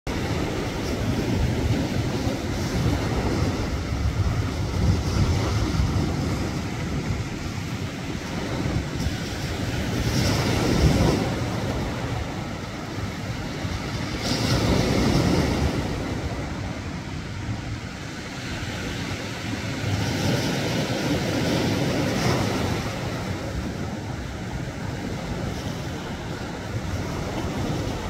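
Sea waves washing in around shoreline rocks: a continuous surf wash that swells louder every few seconds as larger waves break and then ebbs.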